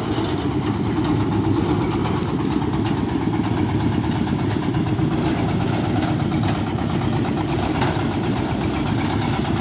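Dongfeng 32 hp diesel engine of a steel-wheeled field carrier running steadily as the machine drives along.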